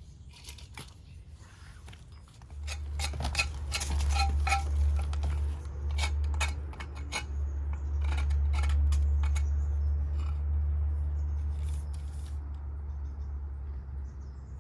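Small clinks and clicks of hard tools and parts being handled during plumbing work, over a steady low rumble that starts about two and a half seconds in.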